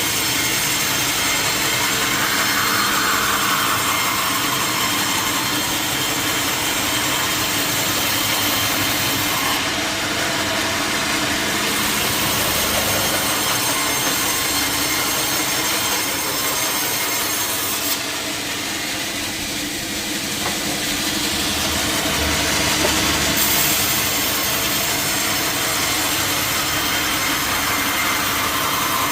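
Sawmill saw running steadily through a teak log, a continuous dense cutting noise with the mill machinery running under it.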